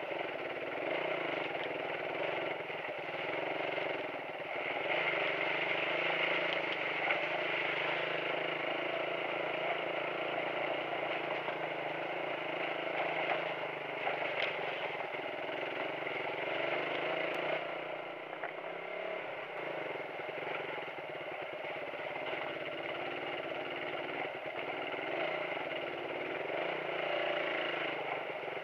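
Suzuki motorcycle engine running steadily as the bike is ridden over a rocky, puddled dirt track.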